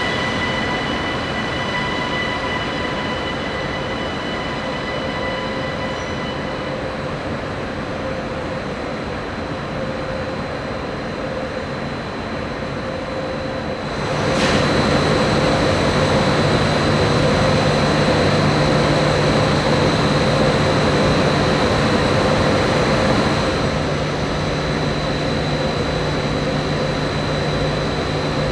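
Electric locomotives standing at the platform: a steady hum of their electrical equipment and cooling blowers, with high steady whining tones over it. About halfway through it grows louder and a deep steady hum comes in.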